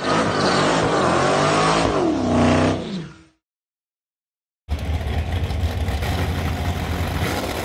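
An engine revving, its pitch rising and then falling off, which stops abruptly after about three seconds. A second and a half of silence follows. Then a drag car's engine idles loudly and steadily at the starting line.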